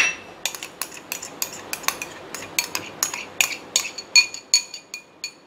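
Metal spoon clinking and scraping against a stainless-steel mixer-grinder jar and a plastic bowl while scooping ice cream into the jar: a quick run of light clinks, several a second, some ringing briefly.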